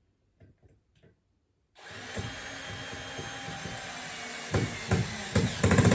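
Power screwdriver starting up about two seconds in and driving a screw into the coffee table's panel, a steady whir that turns louder and uneven near the end as the screw goes home.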